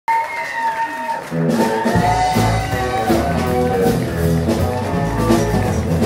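Live country band playing the song's instrumental intro: a guitar line with sliding, bending notes opens, then drums, bass and guitars come in about a second and a half in with a steady beat.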